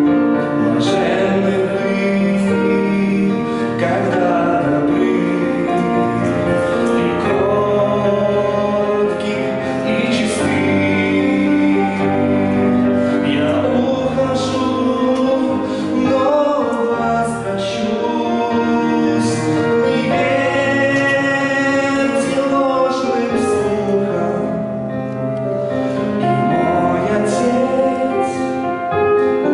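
A man singing a Christian song into a microphone over sustained instrumental accompaniment.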